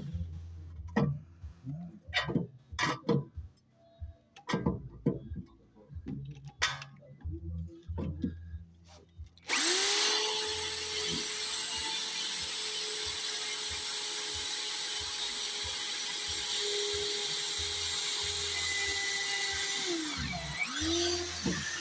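Several knocks and clicks of tools and parts being handled. Then an electric drill starts about halfway through and runs at a steady speed for about ten seconds, drilling a shallow spring seat about half a centimetre deep. It winds down near the end.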